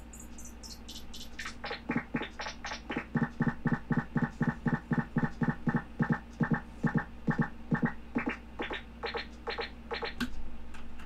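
A DIY modular synthesizer patch playing a fast stream of short electronic blips, about four or five a second, over a steady low hum. The blips start high and thin, drop lower after about a second and a half, and climb higher again near the end.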